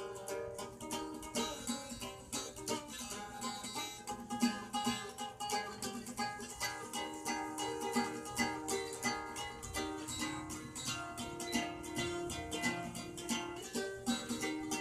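Guitar being played: a steady run of quickly picked notes and chords.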